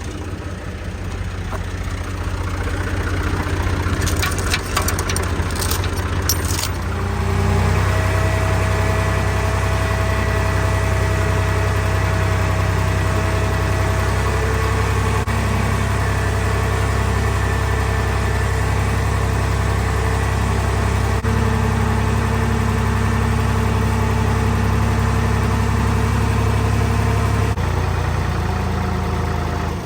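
Tractor engine running, with a few sharp clicks or rattles about four to six seconds in. About seven seconds in the engine picks up to a louder, steady working note, and it eases back near the end.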